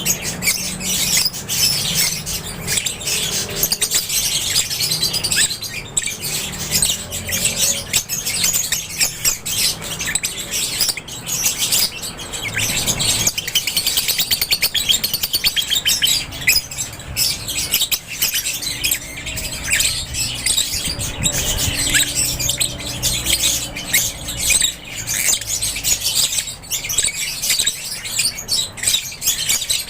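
A flock of lovebirds in an aviary chirping continuously, many birds at once in a dense, overlapping chatter of short high calls.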